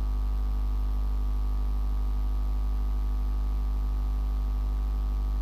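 Steady electrical hum with a buzz, unchanging throughout, of the kind a sound system's mains hum makes.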